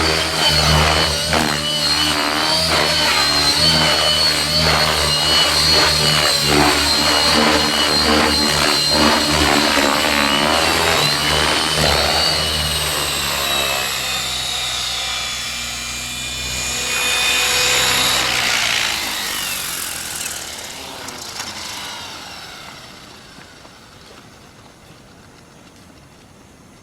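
Whining motor and rotor sound of an RC helicopter in aerobatic flight, the pitch rising and falling with quick throttle changes over a pulsing low beat. It swells once more and then fades away over the last several seconds.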